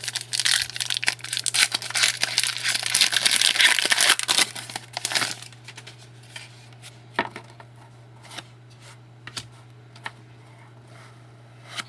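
Hockey card pack wrapper being torn open and crinkled for about five seconds, followed by a few light clicks and taps as the cards are handled.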